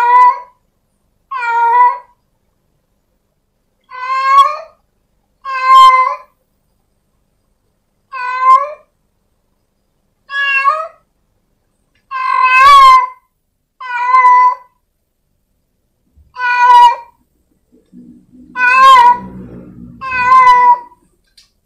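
A cat meowing over and over: about eleven short meows with a wavering pitch, one to two and a half seconds apart, with silence between them.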